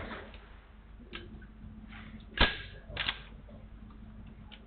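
Gunshots on a shooting range: a lighter crack about a second in, one sharp loud shot about two and a half seconds in, and two quicker reports close together around three seconds in.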